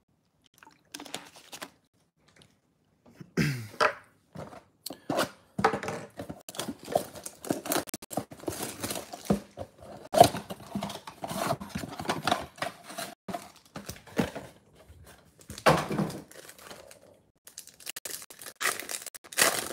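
Hands tearing open a cardboard baseball-card box (a 2022 Bowman Mega Box) and its packs: ripping cardboard and crinkling wrappers, with two heavier thumps, one about three seconds in and one near the end.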